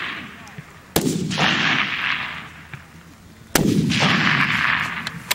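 Two centerfire rifle shots on an open shooting range, about two and a half seconds apart. Each sharp crack is followed by a long rolling echo that fades away over a second or two.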